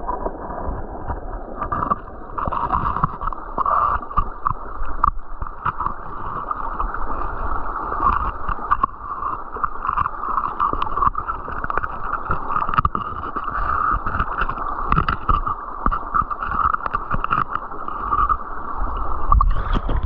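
Creek water running and gurgling steadily, with low rumble and scattered knocks on the microphone.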